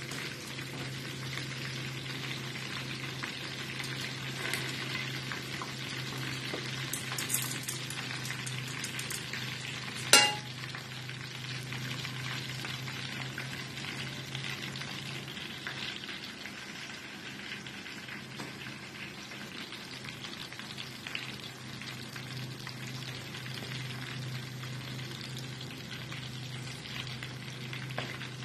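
Chicken pieces frying in a pan of hot oil, a steady sizzle over a low hum, with one sharp clink about ten seconds in.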